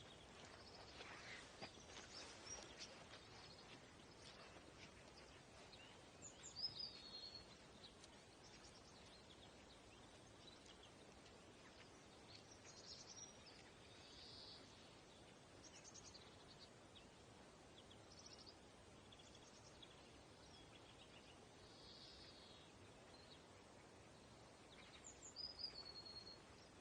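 Quiet outdoor ambience with faint, scattered bird calls. A short falling call comes about six seconds in and again near the end.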